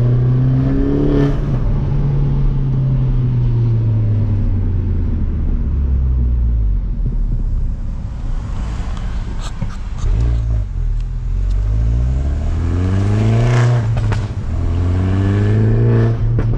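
Mini Cooper S's turbocharged four-cylinder engine under way. The revs rise briefly, fall away over several seconds, then climb again under acceleration, dropping once about fourteen seconds in before climbing again.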